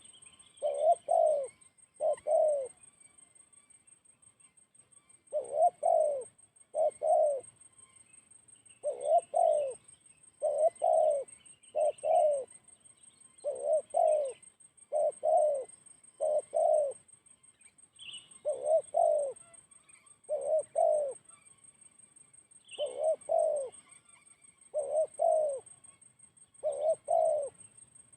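Spotted dove cooing: repeated phrases of two or three low coos, each phrase followed by a pause of a second or more, over a faint steady high trill and scattered chirps of small birds.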